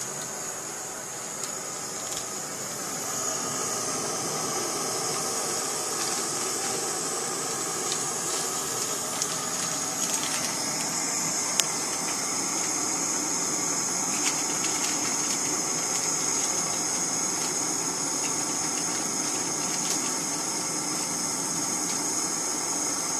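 Jetboil backpacking stove's gas burner running with a steady hiss as it heats water in its cup, growing a little louder about three seconds in, with a few faint clicks.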